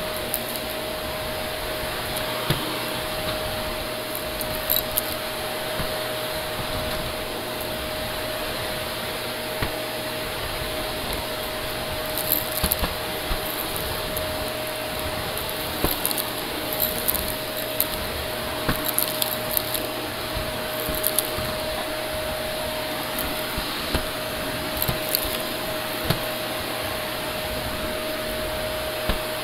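Shark Navigator upright vacuum running steadily on a hard floor, its motor giving a constant whine. Short sharp ticks and crackles come in scattered clusters as grit and crumbs are sucked up the hose.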